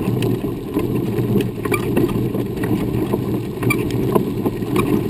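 Wheelchair tyres rolling over a dirt and gravel trail: a steady rumble with scattered small clicks of grit and pebbles under the wheels.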